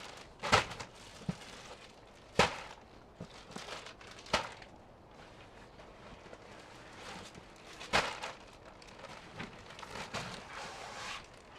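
Four sharp thuds a couple of seconds apart, with soft rustling and lighter knocks between them: gear being handled and set down.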